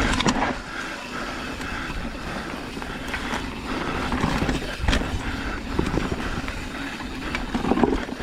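Mountain bike riding on a dirt trail: rough rolling rumble of tyres and wind, with a few sharp knocks and rattles from the bike, one right at the start and one about five seconds in.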